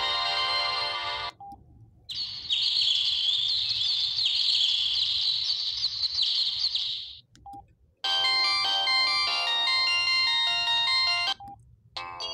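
Samsung SGH-S500 mobile phone playing its built-in tones through its small speaker, one after another: a multi-note melody ends about a second in, then a high, rapid chirping tone runs for about five seconds, then another melody starts near the middle and a third near the end, with short single beeps between them.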